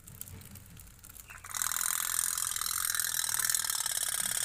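Toy pop-pop steam boat's little boiler rattling rapidly and steadily, starting about a second and a half in, as its steam drives the boat across the water.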